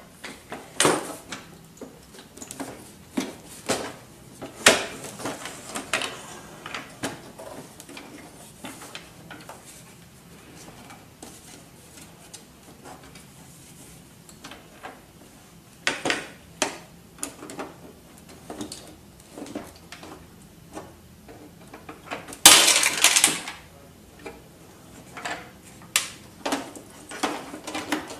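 Plastic clicks, knocks and rattles from the casing of an HP Deskjet F2410 all-in-one printer as it is handled and taken apart by hand. A louder rattle lasting about a second comes about two-thirds of the way through.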